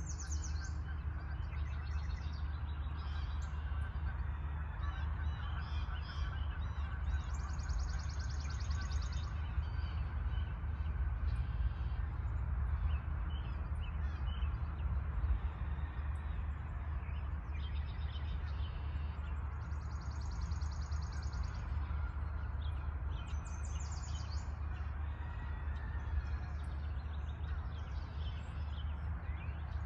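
Wild birds singing and calling in a spring dawn chorus. A rapid high trill lasting about two seconds recurs roughly every twelve seconds among many shorter calls, over a steady low rumble.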